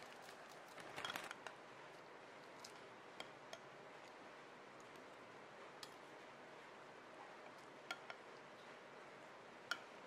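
Faint, scattered clicks of a metal spoon against a ceramic bowl of strawberry yogurt and Rice Krispies, the sharpest near the end. About a second in, a brief rustle as Rice Krispies are poured from a bag into a mug.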